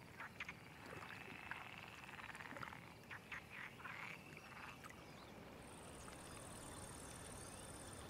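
Faint night-time pond ambience: frogs calling with a few short croaks. From about halfway, an insect's high, steady trill joins in.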